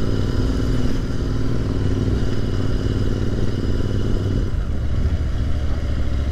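Motorcycle engine running as the bike is ridden at low speed, a steady low engine note that changes about four and a half seconds in.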